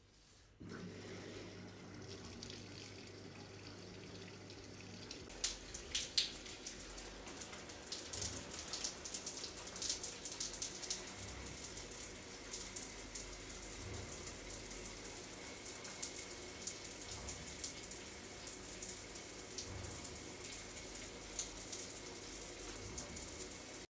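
Water spraying from an overhead rain shower head onto tiled walls and floor: a steady rush that builds after a couple of sharp knocks about six seconds in. A low steady hum comes before it.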